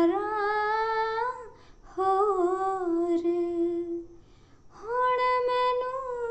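A woman singing a Punjabi devotional song with no instruments, drawing out long held notes in three phrases with short breaths between them. The pitch slides slowly upward through the first phrase.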